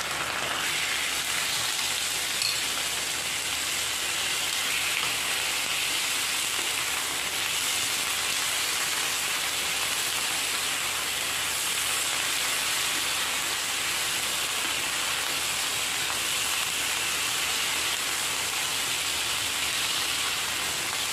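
Marinated chicken pieces frying in hot oil with onions in a nonstick wok: a steady sizzle.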